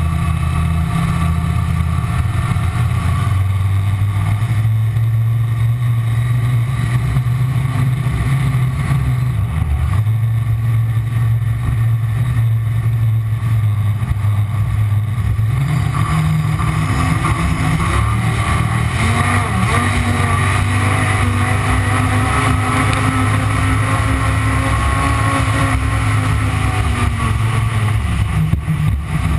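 Ford 557 engine of a V-drive boat running steadily under way, with a loud, low, continuous note. Its pitch shifts about halfway through and drops briefly near the end.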